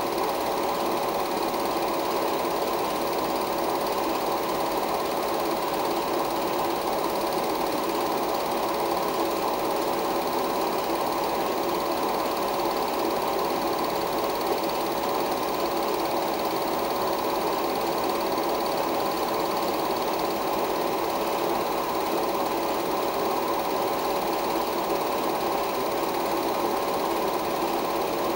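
16mm film projector running: a steady mechanical whirr with a constant tone through it, even and unchanging throughout.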